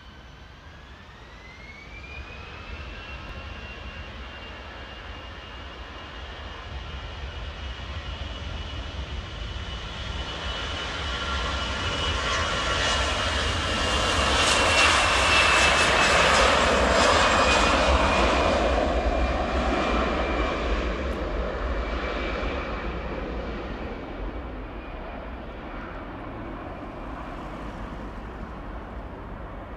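Airbus A320 jet engines spooling up for takeoff, a whine rising in pitch over the first two seconds and then holding steady. The engine noise swells as the airliner runs down the runway past the listener, is loudest about halfway through, and fades as it lifts off and climbs away.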